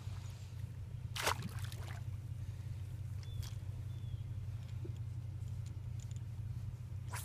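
Wind buffeting the microphone as a steady low rumble, with a short rush of noise about a second in and a fainter one past three seconds.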